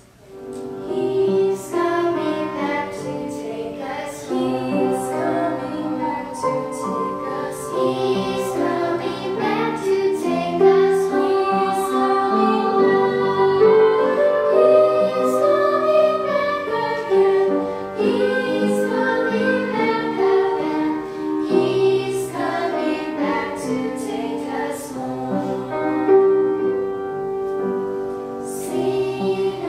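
A group of children and young women singing a song together.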